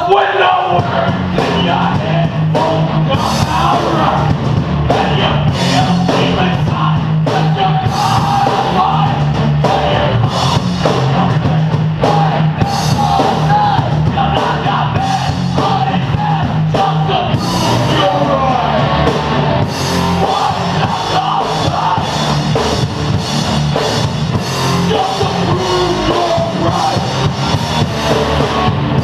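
A live rock band playing loud heavy rock: electric guitars, a drum kit and a singer on microphone, all kicking in at once.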